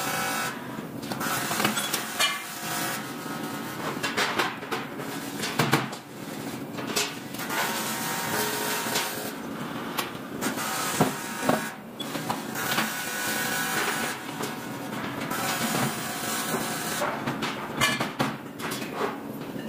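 Metal-fabrication workshop noise: machinery running steadily, with scattered sharp metallic knocks and clatter from work on aluminium frames.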